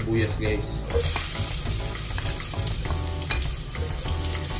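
Minced garlic and chopped onion sizzling in hot cooking oil in a pot, stirred with a wooden spoon.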